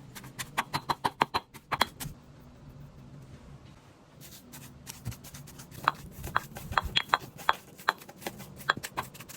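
Kitchen utensil knocks in two quick runs of sharp strikes, about four or five a second, with a slight ring: one run in the first two seconds, another from about six seconds in.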